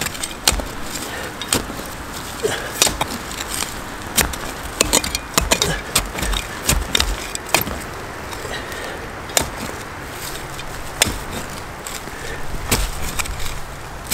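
A hand digging tool chopping and scraping into forest soil, roots and leaf litter: a series of sharp, irregularly spaced strikes.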